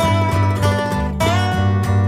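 Background music led by a strummed or plucked guitar, with a steady beat of about four notes a second.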